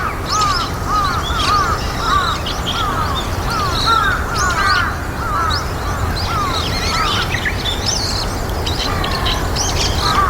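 A flock of brown-eared bulbuls calling, with many short, arched notes overlapping and repeating throughout, over a steady low rumble.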